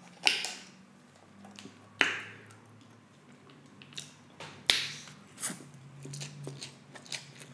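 Wooden chopsticks clicking now and then against the foil-lined tray as instant noodles are picked up and lifted, then noodles being eaten close to the microphone, with a low steady hum in the last second or two.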